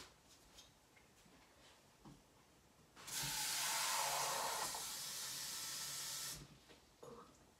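Kitchen tap running water in a steady hissing stream for about three and a half seconds, starting about three seconds in and shutting off abruptly, as a measuring cup is filled with water for a cake mix.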